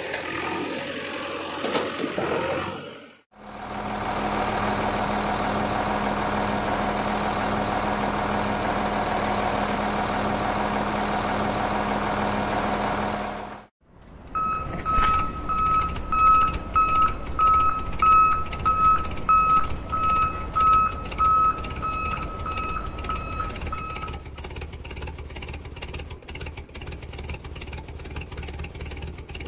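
Heavy-vehicle sound effects: a steady engine drone lasting about ten seconds, then a truck's reversing alarm beeping a little under twice a second over a low engine rumble. The beeping stops about two-thirds of the way in and the rumble runs on.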